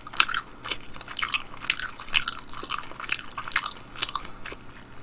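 A person chewing a mouthful of buffalo wing close to the microphone, with irregular crunching.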